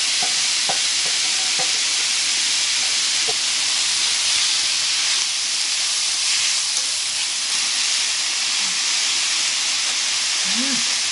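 Cucumber, pork and vegetables sizzling steadily in a hot oiled wok as they are stir-fried with a wooden spatula, with a few light knocks of the spatula against the pan in the first few seconds.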